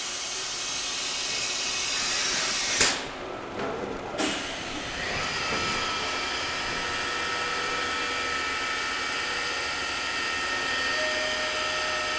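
Fadal 6030 HT vertical machining center running a tool change: a steady hiss of air, two sharp clunks about a second and a half apart as the automatic tool changer swaps the tool, then the spindle running with a steady whine.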